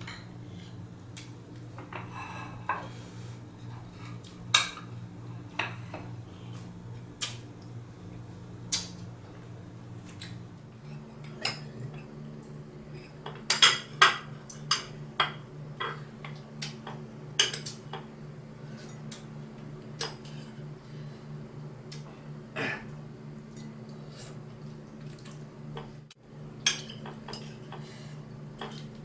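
Cooking utensils clinking and knocking against a pot or pan in scattered strikes, busiest about halfway through, over a steady low hum that changes pitch about ten seconds in.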